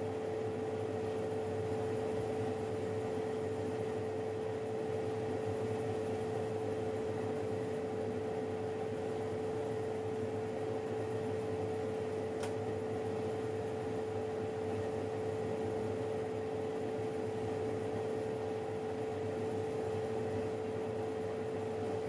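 Oven running while cookies bake: a steady hum with a fan's whoosh and a constant tone, and one brief tick about twelve seconds in.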